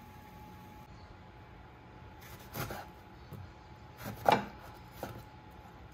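Knife cutting a lemon into wedges on a wooden cutting board. There are three sharp knocks of the blade on the board in the second half, the middle one the loudest.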